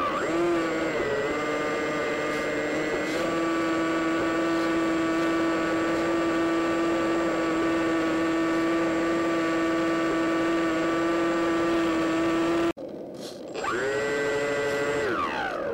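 Electric motor and propeller of an EasyStar RC plane whining steadily in flight, heard from the onboard camera. The pitch settles after a short rise early on. It cuts off suddenly near the end, then spools up again briefly and winds down.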